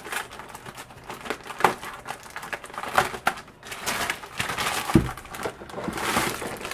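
Clear plastic bag crinkling and crackling as a boxed network appliance is handled inside it, with a thump about five seconds in.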